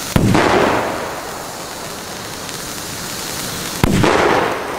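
Two firecracker bangs about three and a half seconds apart, each trailing off over about a second, over the steady hiss of a burning Bengal fire throwing sparks.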